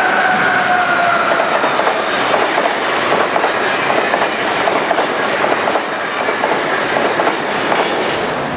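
Amtrak AEM-7 electric locomotive and its Amfleet coaches on a Northeast Regional train passing at speed. A whine from the locomotive falls in pitch as it goes by in the first second. Then comes a loud rush of wheels clicking rapidly over the rail joints as the coaches pass, easing off near the end.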